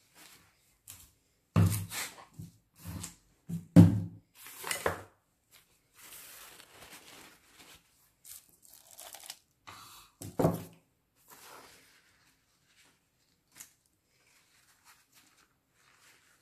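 Paper napkin being torn and handled: a series of short ripping and crinkling sounds with a few dull knocks, loudest in the first five seconds and again about ten seconds in.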